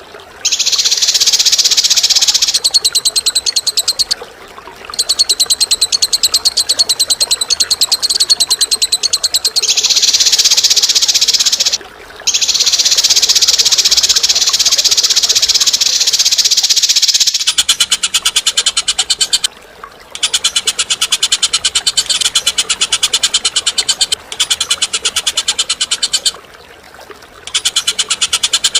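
A bird's harsh, fast rattling trills, given in long phrases of several seconds with short pauses between them. This is bird-training 'masteran' song; partway through, the rattle changes to a somewhat lower, coarser pattern.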